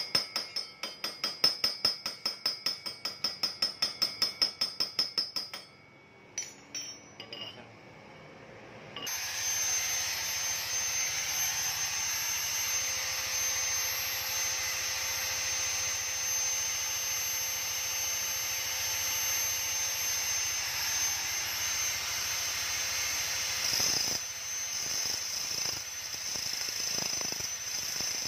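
Fast metallic clicking with a ringing tone, about five clicks a second, for the first few seconds. Then, about nine seconds in, a handheld electric grinder starts and runs steadily with a high whine, grinding metal at the end of a scooter crankshaft.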